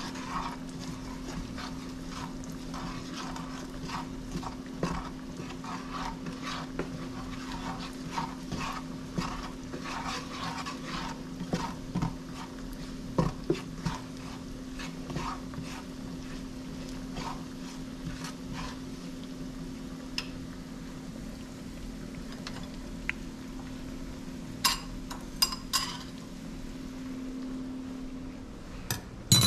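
A cooking utensil stirring, scraping and tapping in a pot or pan, over a steady low hum. There is a short run of sharper clinks near the end.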